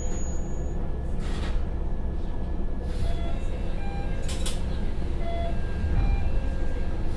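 Interior of an Akechi 100 diesel railcar standing at a station, its Niigata DMF13HZ diesel engine idling in a steady low rumble. Short bursts of compressed air hiss several times, the strongest about four seconds in, and a few short beeps sound in the second half.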